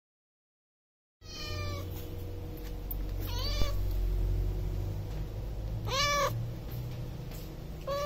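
A domestic cat meowing four times, a few seconds apart, over a low steady background hum, after about a second of silence.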